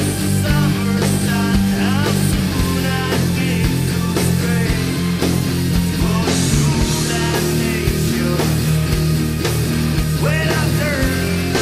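Heavy rock music: an electric guitar in D standard tuning with a full band of bass and drums, and gliding lead notes above.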